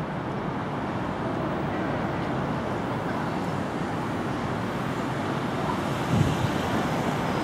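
EF66 electric locomotive hauling a container freight train slowly past, a steady rumble of the locomotive and wheels on the rails, with a low thud about six seconds in.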